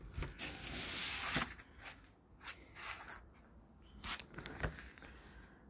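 Cardboard packing being handled: a long rustling scrape near the start, then softer scraping with several light knocks.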